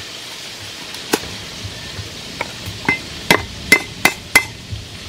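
Heavy cleaver chopping herbs on a round wooden chopping block, about eight uneven knocks that come faster and louder toward the end. The hardest strokes leave a brief metallic ring from the blade.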